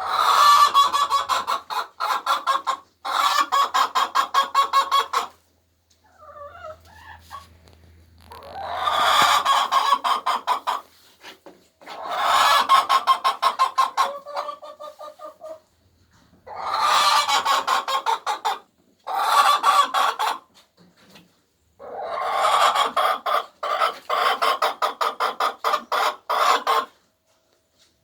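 Hens cackling in repeated bouts of rapid clucks, about seven loud runs separated by short pauses: the loud cackle, or egg song, hens give around laying.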